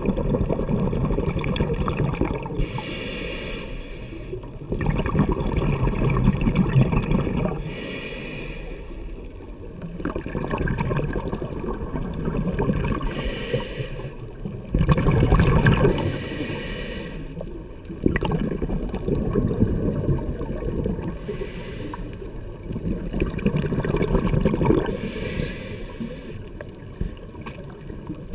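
Scuba diver breathing through a regulator underwater: a hissing inhale, then a rush of exhaled bubbles, about one breath every four to five seconds.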